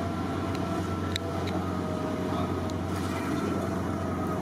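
Steady low rumbling hum with a few steady tones through it, with a couple of light metal clicks about a second in, likely from a long metal ladle against the cooking pots.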